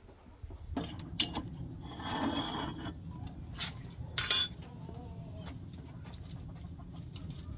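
Kitchenware being handled: a few sharp clinks and knocks of dishes and utensils, a scraping rub about two seconds in, and a louder clatter around four seconds, over a steady low hum.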